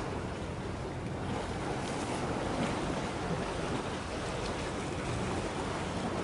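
Steady wash of harbour water with wind buffeting the microphone: an even, unbroken rush with no distinct events.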